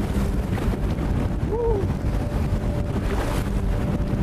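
Strong wind buffeting the microphone over choppy, wind-driven lake water, a steady low rumble throughout. A brief vocal exclamation rises and falls about a second and a half in.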